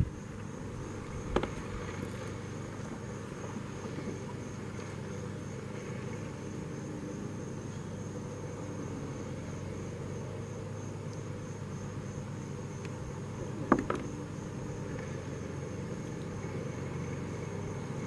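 Steady outdoor background of a low rumble with a thin, steady high tone, broken by two sharp knocks, one about a second in and a louder one near the end.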